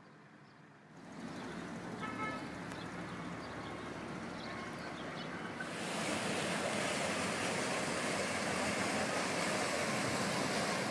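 Steady road-traffic noise with a short horn toot about two seconds in. About six seconds in it gives way to a louder, even rushing noise as a river tour boat passes close by.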